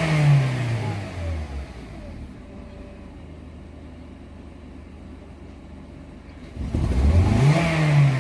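Honda Civic FD four-cylinder engine blipped and settling: the revs fall back to a steady idle over the first second and a half, then it is revved again near the end. It runs smooth, without misfire, after a faulty ignition coil was replaced.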